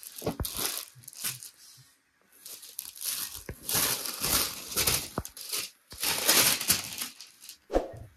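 Crinkling of a clear plastic packet and rustling of jam cotton suit fabric as the packed suit is pulled out, unfolded and shaken open, in a series of irregular bursts that are busiest in the second half.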